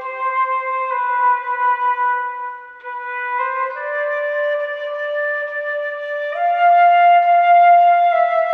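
Solo concert flute playing a slow hymn melody in long held notes that climb gently in pitch, growing louder about six seconds in.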